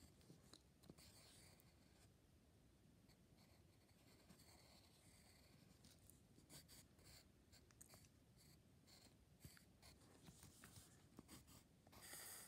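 Faint scratching of a pen on lined notebook paper, in many short strokes as letter outlines are drawn, with a louder run of scratching near the end.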